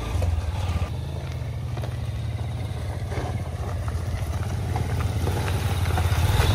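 Motorcycle engine running as the bike climbs a rough dirt hill track, heard from on the bike: a steady low rumble that grows a little louder near the end.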